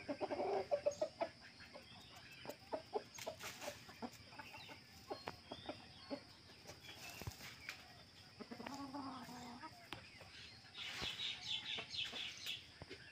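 Backyard chickens clucking: a burst of clucks at the start, another about two-thirds of the way through, and a run of higher calls near the end. Scattered small clicks and rustles in between.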